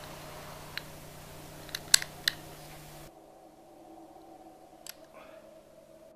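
Revolver being handled and cocked: a few sharp metallic clicks, the loudest about two seconds in, over a faint steady hum.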